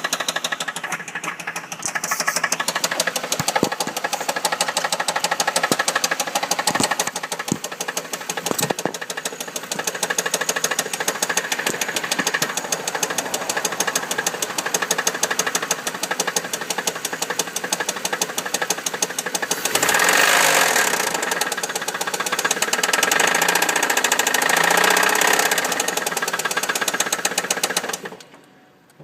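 Chevrolet Monte Carlo SS 3.8-litre V6 idling with a rapid, steady knock in time with the engine: rod knock, a worn connecting-rod bearing, despite fresh oil and good oil pressure. It gets louder for a stretch about two-thirds through and cuts off near the end.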